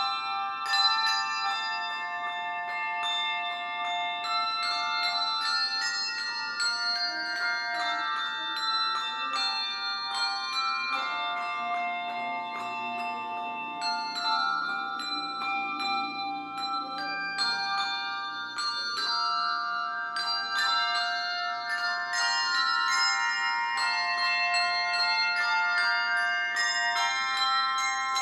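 A handbell choir playing a tune on tuned handbells: many bell notes struck in quick succession, each ringing on and overlapping the next.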